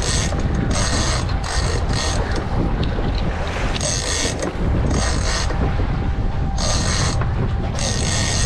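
Big-game fishing reel being cranked hard against a hooked swordfish, its gears whirring in a run of short spurts over a steady low rumble.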